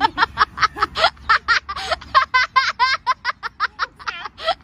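A child laughing in a long run of quick, high-pitched ha-ha syllables, several a second.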